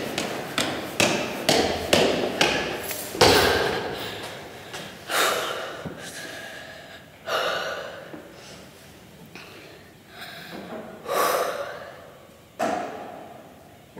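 Quick footsteps running down stone stairs, about two or three steps a second, ending in a loud thud about three seconds in. Then a few separate gasping breaths a couple of seconds apart, echoing in the stairwell.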